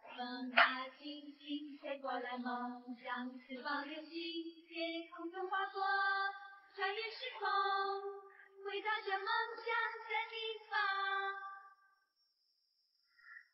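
A high voice singing a melody with several long held notes, stopping shortly before the end. A sharp click about half a second in is the loudest single sound.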